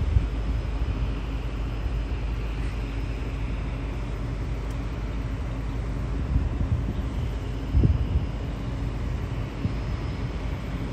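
Distant single-engine floatplane droning on its final approach to land on the water, under a low rumble of wind on the microphone with a gust about eight seconds in.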